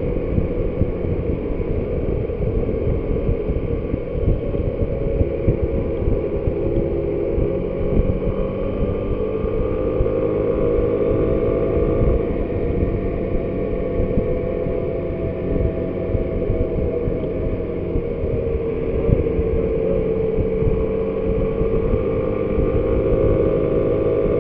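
Motor scooter engine running steadily at road speed, its note drifting gently up and down with speed, under a constant rumble of wind buffeting the microphone.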